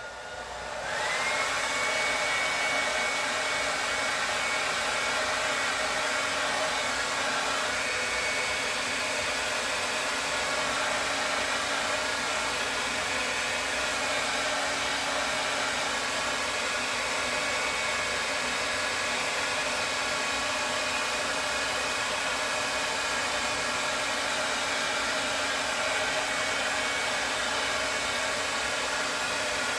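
Handheld hair dryer switched on, coming up to speed over about a second, then blowing steadily with a high whine to dry the glue on a lace front wig.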